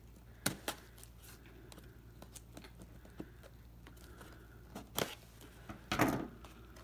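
Scissors snipping and slicing the packing tape on a small cardboard box, heard as scattered light clicks. Two short, louder rasps of tape and cardboard come near the end, the second the loudest.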